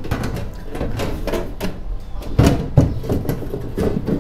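Cut aluminum sheet being fitted into an aluminum jon boat's rod locker, sliding and scraping against the hull ribs, with two louder knocks a little past halfway.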